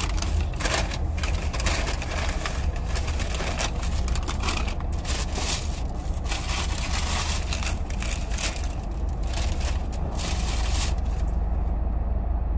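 Steady low rumble of a car heard from inside the cabin, with repeated irregular crinkling and scraping as takeout food packaging is handled.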